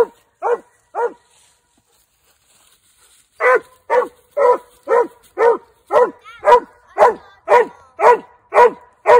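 Young hound barking at a squirrel drag it has found: three barks, a pause of about two seconds, then a steady chop of about two barks a second.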